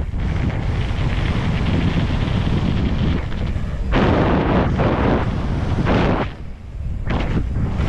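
Wind buffeting the action camera's microphone during a fast mountain-bike descent on a dirt trail, over the rumble and rattle of the bike's tyres and frame on the ground. It surges louder about four and six seconds in and dips briefly about six and a half seconds in.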